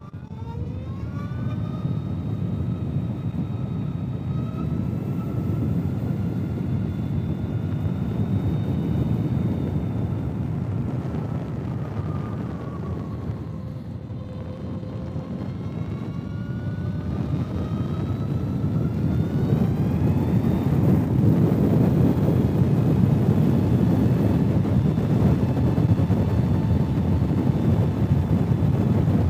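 Zero SR/F electric motorcycle riding: its electric motor gives a high whine that rises as it pulls away, dips about halfway through and climbs again as it speeds up. Tyre and wind noise build up and become the louder part near the end as speed rises.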